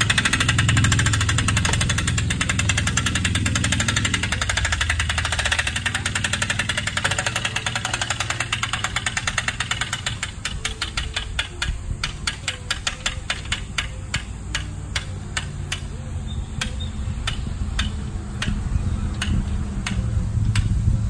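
Hand-crank winch of a homemade telescoping antenna tower clicking rapidly as the tower is cranked up. The clicks slow to separate ones a few times a second about halfway through.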